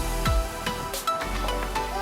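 Background music with an electronic beat: two deep kick-drum hits near the start, over steady sustained tones and light percussion ticks.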